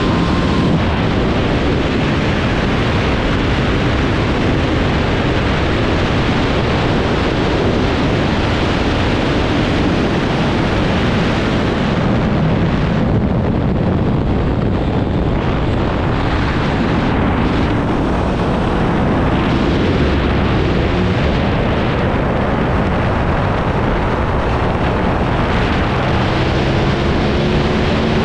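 Wind rushing over the microphone on an Aprilia RS660 at track speed, with its parallel-twin engine running underneath. The rush eases around the middle as the bike slows to about 60 km/h for a tight corner, and the engine pitch climbs near the end as it accelerates again.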